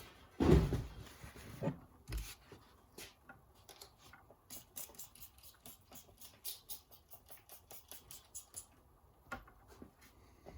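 A loud knock about half a second in, then a run of light, irregular clicks and taps as clutch hydraulic parts and tools are handled.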